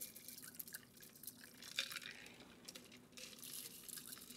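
A shaken cocktail being double-strained from a metal shaker tin through a fine-mesh strainer into coupe glasses: a faint trickle of liquid with a few light clicks.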